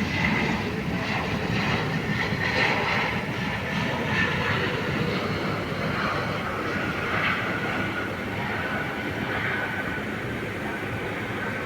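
Embraer E195 jet airliner's GE CF34 turbofan engines during the landing: a steady rushing noise with a faint whine that settles slightly lower near the end.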